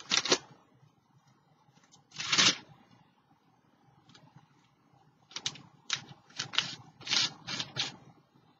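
Paper being handled on a work table: one short scratchy rustle, then after a pause a quick series of about eight short scratchy strokes.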